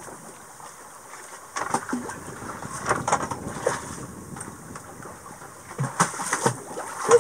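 Water sloshing and washing against the hull of a sailboat rolling in open-ocean swell, with scattered knocks and clatter, the loudest near the end.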